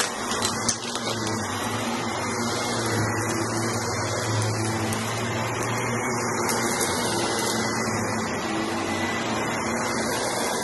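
Cordless stick vacuum running steadily while its floor head is pushed through shaggy rugs, the brushroll crunching through the shag pile, with a thin steady whine over a low hum. There are a couple of brief knocks near the start.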